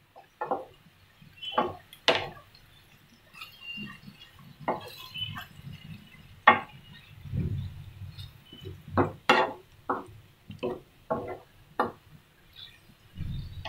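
Wooden spatula knocking and scraping against a frying pan while stirring chopped tomatoes and spice powders, in a string of irregular clicks and knocks with a couple of duller thuds.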